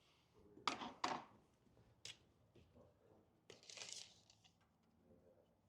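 Faint handling noises: a few sharp clicks, about a second in and again near two seconds, then a brief rustle around four seconds.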